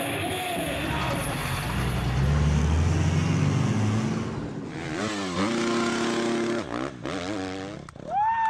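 Engine sound effect: a motor revving up, then running with its pitch dipping and climbing again twice like gear changes, with a sharp rising tone right at the end.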